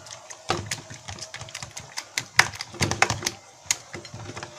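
Fork beating a thick batter in a bowl, its tines clicking against the bowl in quick, irregular strokes.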